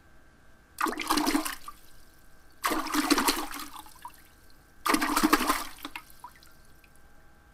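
Three rushing, water-like sound effects about two seconds apart, each starting suddenly and fading within about a second, one for each word added to the title card.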